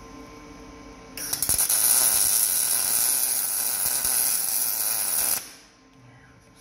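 A welding arc crackling and sizzling steadily for about four seconds as a steel rock slider is welded to the vehicle frame, starting about a second in and stopping abruptly. A faint steady hum is heard before and after the weld.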